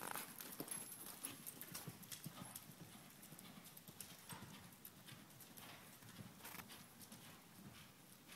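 Hoofbeats of a ridden horse on soft arena footing, a quick run of dull knocks, louder at first as the horse passes close and then fading as it moves away.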